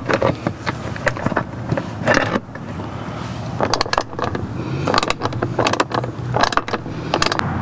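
Plastic golf cart bumper being fitted back onto the front body by hand: irregular clicks, knocks and scrapes of plastic against plastic.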